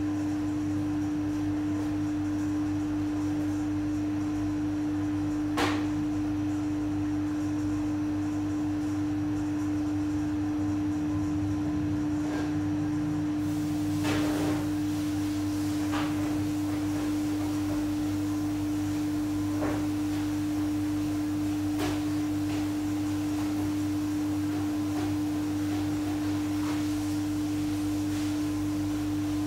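A steady hum held at one pitch, unchanging throughout, with a few faint clicks and taps scattered through it.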